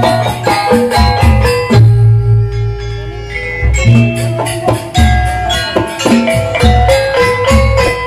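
Javanese campursari dance music played live: struck metallophones ringing out a repeating melody over drum and deep pulsing bass. About two seconds in the beat drops out briefly under a held note, then picks up again.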